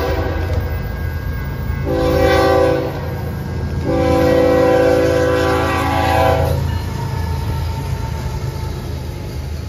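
Freight diesel locomotive's air horn sounding for a grade crossing. A blast ends just as the sound begins, then comes a short blast about two seconds in and a long blast from about four to six and a half seconds: the close of the crossing signal. The horn sounds over the steady low rumble of the locomotives and the train rolling past.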